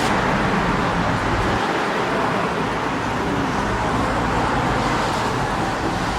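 Steady road traffic noise, a continuous hiss and rumble of passing cars.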